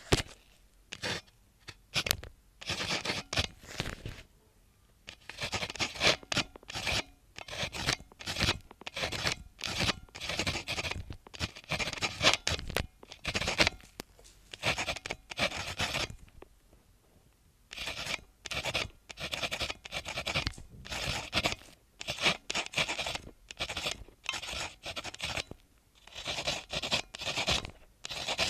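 Pen writing on notepaper: quick scratching strokes in short runs, with a few brief pauses, the longest lasting over a second about midway.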